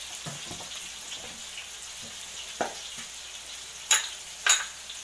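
Food frying in hot oil on the stove, a steady sizzle with small crackles. Two sharp clicks near the end, about half a second apart, are the loudest sounds.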